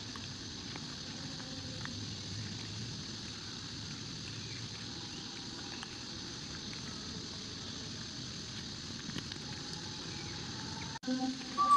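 Steady outdoor background noise: an even hiss with a low rumble underneath, and a brief high squeak near the end.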